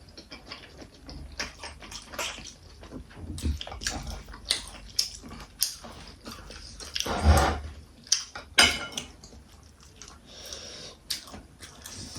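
Close-up eating sounds of people chewing and biting into veg momos (steamed dumplings), with many short wet mouth clicks and smacks, and a couple of louder ones a little past the middle.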